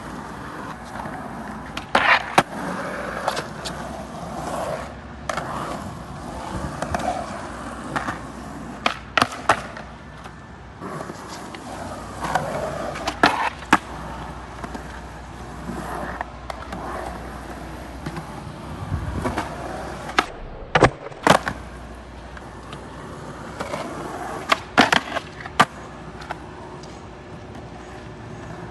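Skateboard wheels rolling on wet pavement, broken again and again by sharp clacks of the board: tail pops, landings and the board slapping down on failed tries.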